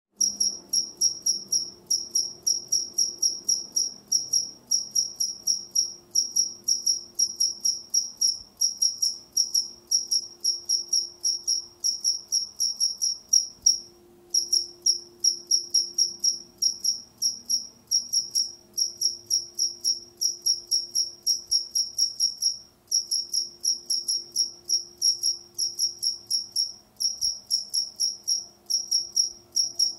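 A single cricket chirping steadily in a high, regular pulse of about three chirps a second, with two brief pauses.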